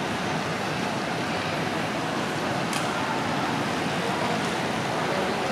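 Steady hubbub of a large crowd walking along a railway platform: many footsteps and indistinct voices blending into an even noise, with one short click about halfway through.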